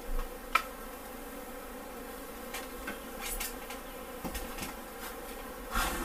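Honeybees buzzing steadily around exposed comb. A sharp knock comes about half a second in, and a short clatter of clicks near the end.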